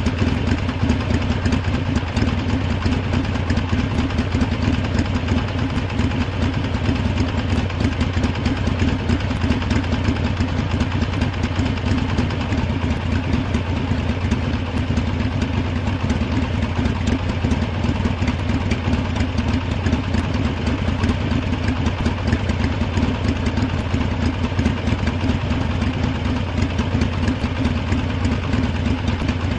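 Harley-Davidson V-twin motorcycle engine idling steadily, with no revving.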